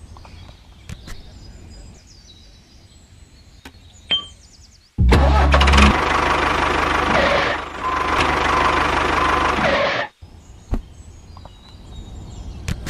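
Quiet with a few clicks, then a small tractor engine running loudly, starting abruptly about five seconds in and cutting off just as suddenly about five seconds later.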